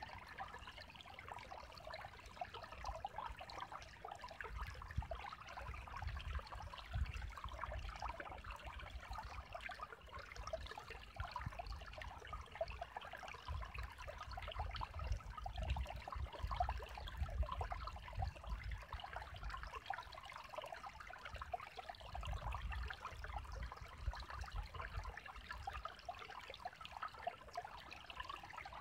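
Spring-fed woodland creek running in a steady trickle and splash over a low rock ledge into a shallow pool.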